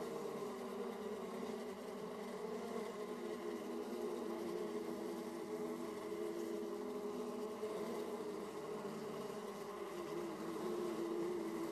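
Honeybees buzzing at a hive entrance: a steady drone of many overlapping wingbeats, made up of several slightly wavering pitches as foragers fly in and out.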